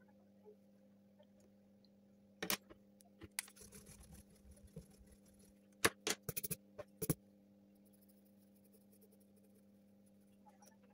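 Graphite pencil scratching on drawing paper in short strokes, with a few sharp clicks and knocks, over a faint steady hum.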